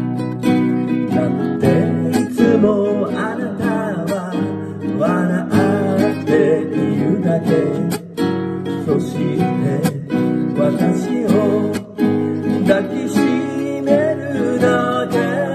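Nylon-string classical guitar strummed in a steady chord accompaniment, with a man's singing voice carrying a melody over parts of it.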